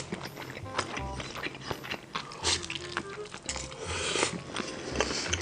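Close-miked eating: a person chewing and biting food with many sharp crunching clicks, over background music with a pulsing low beat.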